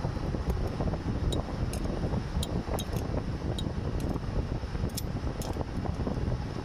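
Steady rumbling background noise with scattered light metallic clicks as a small wrench is worked on the centre bolt of a car's AC compressor clutch.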